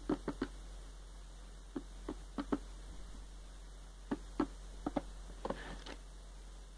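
A red plastic Living World Dome hideout knocking and tapping against the cage floor as a guinea pig moves inside it and shoves it around. The knocks come in a few quick clusters, with a short scrape near the end, over a faint low mains hum.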